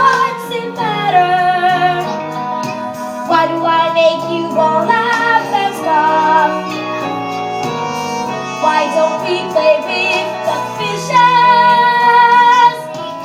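Musical theatre song: a woman singing sustained notes with vibrato over instrumental accompaniment, ending on a long held note that cuts off near the end.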